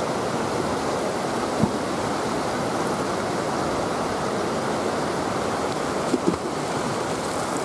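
Steady rush of river water pouring over a dam's weir. There is a small knock about one and a half seconds in and two more around six seconds.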